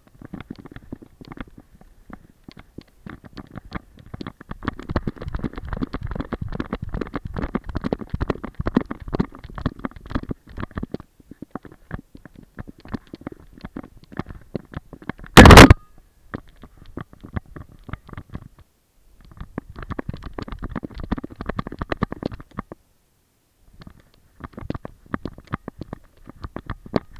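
Rubbing and crackling handling noise from a GoPro strapped to a walking Weimaraner's back, coming in spells as the harness and fur shift with the dog's movements. About halfway there is one very loud knock on the camera housing.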